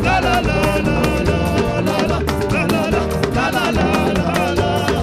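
Yoruba gospel praise music with a steady beat and held melody notes.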